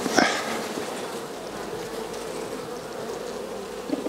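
Buckfast honeybees buzzing steadily around an opened hive. A short scrape just after the start and a light knock near the end as the hive box is lifted and set down.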